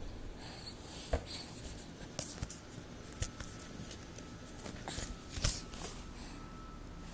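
Hiccups: several short, sharp catches about every two seconds, mixed with soft scratchy noises.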